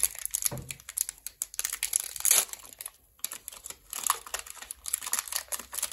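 A Pokémon card blister pack, a plastic shell on a cardboard backing, crinkling and tearing as it is pulled open by hand. It makes an uneven run of sharp crackles and rips, louder a little over two seconds in and again around four to five seconds.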